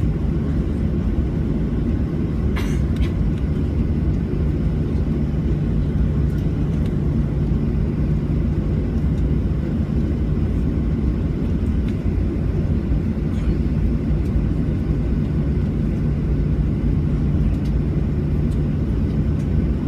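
Steady low drone inside the cabin of a Boeing 737-700, its jet engines running at low power with an even hum that holds without rising. A few faint light clicks sound over it, one about two and a half seconds in.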